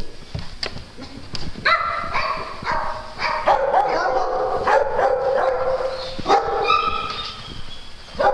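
Dogs barking and yipping in play, a few of the calls drawn out for a second or more.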